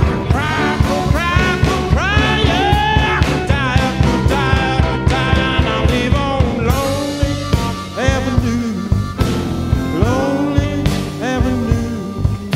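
Blues band playing an instrumental break: a lead line of bending, sliding notes over bass guitar and a steady drum beat.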